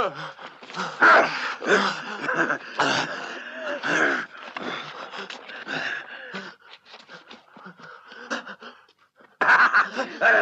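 Wordless human vocal sounds in short, irregular bursts, with a brief lull about nine seconds in before louder voices return.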